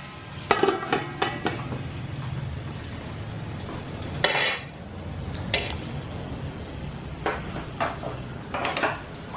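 Aluminium pan lid clanking and ringing as it is set down on the pan, then irregular knocks and clinks against the covered pan as live mud crabs move about inside, over a steady sizzle of frying.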